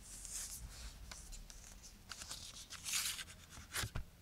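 Plastic wrapping on a CD case being torn and peeled in scratchy rustling bursts, with a sharp click near the end.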